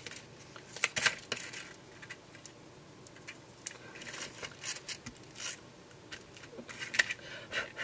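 Light, irregular handling noises of paper crafting: small adhesive embellishments being peeled off their backing sheet and pressed onto a paper page, with brief scrapes, rustles and taps, the loudest about a second in.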